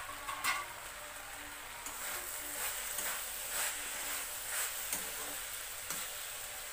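Mixed vegetables sizzling in a kadai while a spatula stirs and scrapes them, with a click just after the start and strokes about twice a second from about two seconds in.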